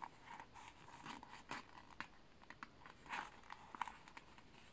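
Faint rustling and soft scattered ticks of paper sticker sheets being handled and stickers being peeled off.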